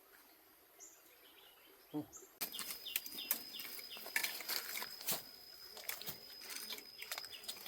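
Faint outdoor ambience with calling insects or birds: a thin, steady, high-pitched drone with short chirps repeating a few times a second and scattered light clicks. It starts after about two seconds of near silence.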